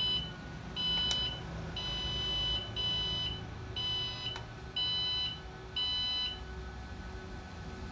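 Ki-Power online UPS beeping as it starts up after its on button is pressed: a high, even beep about once a second, seven times, stopping about six seconds in. Two sharp clicks fall among the beeps.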